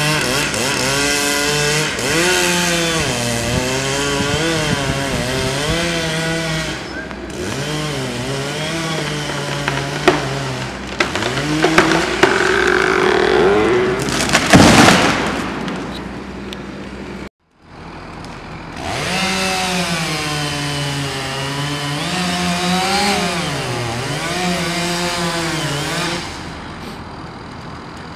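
Chainsaw cutting into a tree trunk, its engine note dropping under load and climbing again over and over. About fifteen seconds in, a tree comes down with a loud crash of breaking branches. After a brief gap the saw cuts again until it stops near the end.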